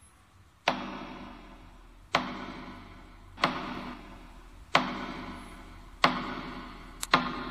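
Slow, evenly spaced strikes on a ceremonial percussion instrument, about one every 1.3 seconds, each sharp hit ringing out and fading before the next.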